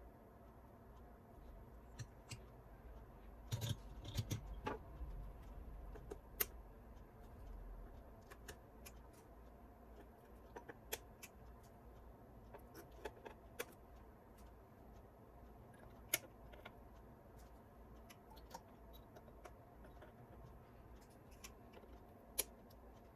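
Small parts being handled during repair work: scattered light clicks and clinks, with a short burst of rattling about four seconds in and a few sharper single clicks later.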